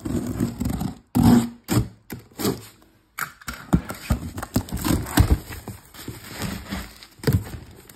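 Utility knife slitting plastic-wrapped cardboard, then the box flaps pulled open and bubble wrap handled: a run of irregular scrapes, rips and thuds.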